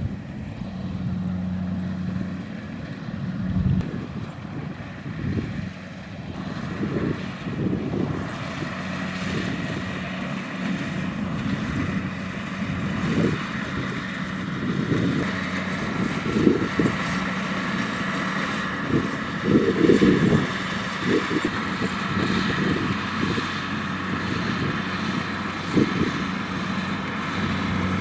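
Kubota DC-70X rice combine harvester's diesel engine running steadily under working load, a constant hum with mechanical clatter, and irregular low buffeting.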